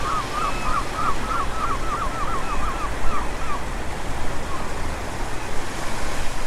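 Steady rushing outdoor noise, with a bird calling a fast run of about ten short, repeated notes during the first three and a half seconds.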